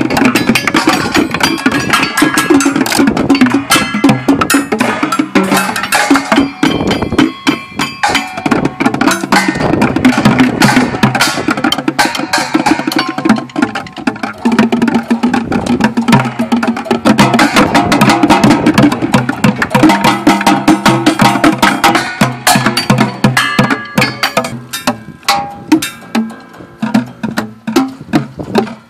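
Outdoor percussion installation struck in quick, irregular hits, each hit ringing with a pitched tone; the hits come more sparsely near the end.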